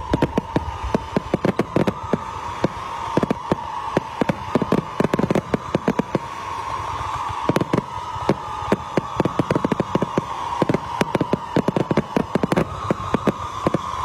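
Fireworks display: rapid, irregular volleys of bangs from aerial shells, several a second, over a continuous whistling hiss.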